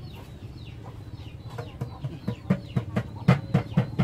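Animal calls: high, falling peeps repeat throughout. From about a second and a half in, a run of short, loud calls comes faster and louder, about four a second near the end.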